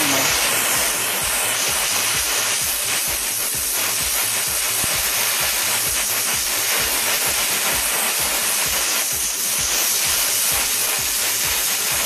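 Gas torch flame playing on a copper pipe joint, a steady hiss with a low flutter underneath about four times a second, as the joint is heated to melt a preformed brazing ring into the fitting.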